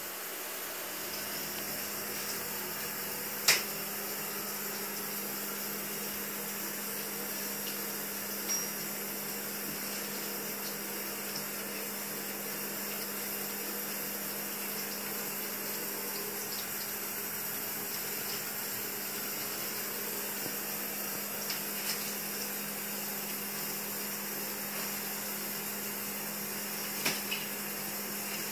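Tap water running steadily into a bathroom sink as a blue-and-gold macaw bathes in it, over a steady low hum. A few brief sharp sounds stand out, the loudest about three and a half seconds in, as the bird splashes and flaps in the basin.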